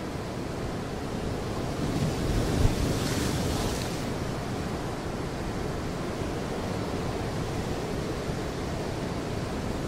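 Sea surf washing steadily onto a beach, with wind noise; a wave swells and hisses up about two to four seconds in.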